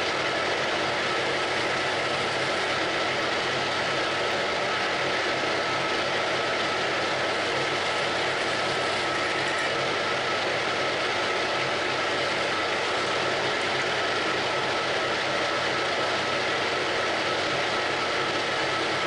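Geared-head metal lathe running steadily, its headstock gearing giving a constant whine over an even mechanical hum.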